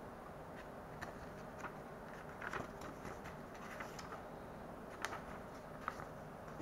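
Pages of a paper instruction booklet being turned and handled: short, scattered paper rustles and flicks, a small cluster about two and a half seconds in, over a faint steady hiss.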